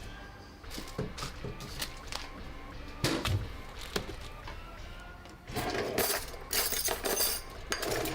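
Music with a string of sharp clicks and clinks, growing busier in the second half, some of them briefly ringing.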